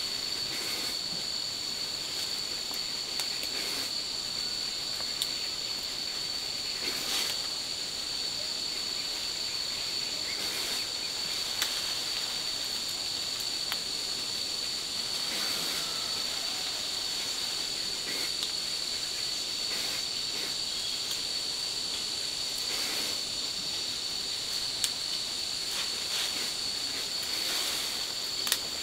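Steady, high-pitched drone of insects, with a few light clicks and soft rustles over it.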